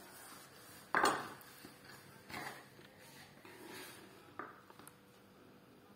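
Kitchen handling sounds: a sharp knock about a second in, then a few softer knocks and scrapes of a table knife against a wooden pastry board as pieces of dough are dragged into orecchiette.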